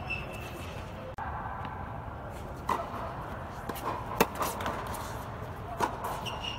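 Tennis ball knocks on an indoor court: a few separate sharp hits and bounces, the loudest about four seconds in, over a steady low rumble with some faint voices.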